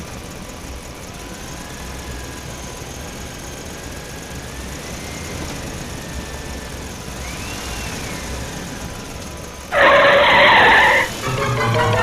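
Toy or cartoon vehicle engine running steadily with a low rumble and faint gliding whines. About ten seconds in, a loud pitched blast sounds for about a second, and music begins.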